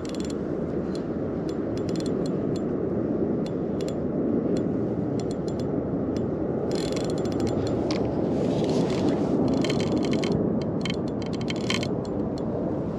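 Fishing reel working against a hooked sturgeon: a steady gear whirr with rapid ratchety clicking of the drag, the clicking growing denser about halfway through.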